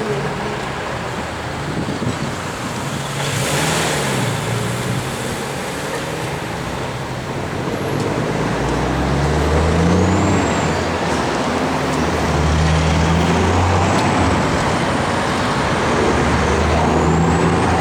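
Road traffic: a motor vehicle's engine running and changing pitch in steps as it speeds up and slows, over steady tyre and road noise. A short hiss comes about three and a half seconds in.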